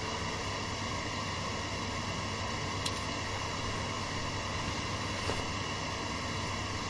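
Steady hiss with a low hum from the open microphone and room between songs, with a faint click about three seconds in and another about five seconds in.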